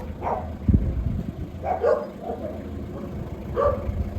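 A dog barking three times, about a second and a half apart, over a steady low rumble.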